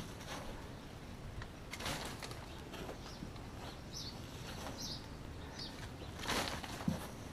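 Small birds chirping, short high notes every second or so, with two louder rough scraping swishes of soil being shovelled, one about two seconds in and one near the end.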